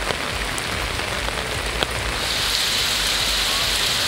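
Heavy rain falling, a steady hiss with a few sharp ticks of drops, the loudest a little under two seconds in.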